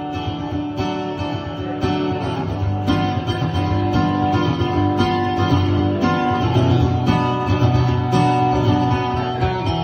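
Solo acoustic guitar playing an instrumental passage of strummed chords and picked notes, with no voice.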